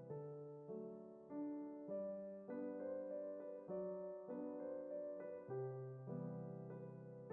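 Background piano music: soft chords struck about every half second, each ringing and fading before the next.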